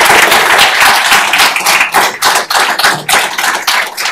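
Audience applauding: a dense patter of clapping that thins to scattered separate claps over the last couple of seconds.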